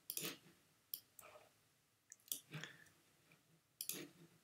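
Faint computer mouse and keyboard clicks, several short separate clicks spread over a few seconds, as a text box is Alt-dragged to copy it.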